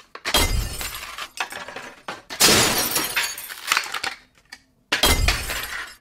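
Clear plastic blister packaging crackling and cracking as it is pried open by hand, in three bouts, the middle one the loudest.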